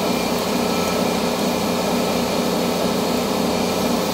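Air compressor running steadily, a loud, even motor drone with a constant hum as it builds back up to pressure.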